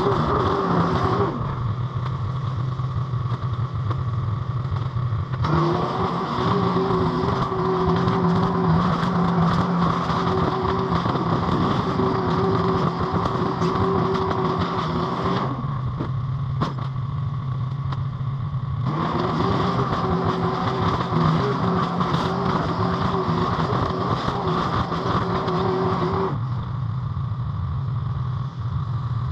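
Mini skid steer's engine running steadily, with a higher steady tone that drops away and comes back in long spells as the machine works, and one sharp knock about halfway through.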